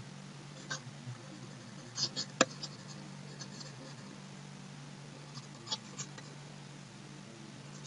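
Faint, scattered scratches and taps of handwriting being written out, over a steady low hum.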